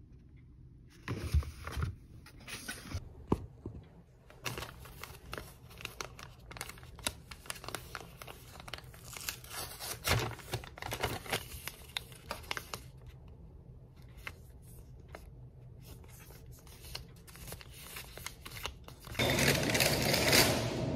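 Crinkling and tearing handling noises with scattered clicks. Near the end a louder steady hiss with a low hum starts.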